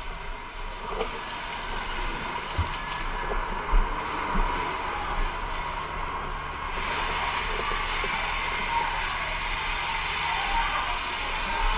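Fire hose stream spraying water with a steady rushing hiss over a low steady hum; the hiss grows brighter about seven seconds in.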